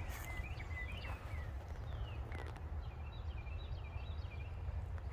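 Small birds chirping outdoors: runs of short high notes, some sliding down in pitch, over a steady low rumble.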